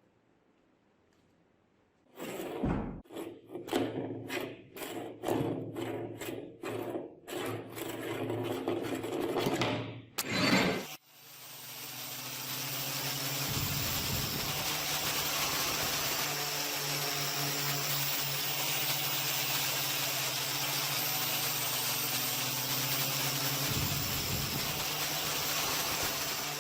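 Workshop tool work on a rusty axe head: after a short silence, a run of rough rubbing strokes about two a second, then a tool motor starts and runs steadily with a hiss.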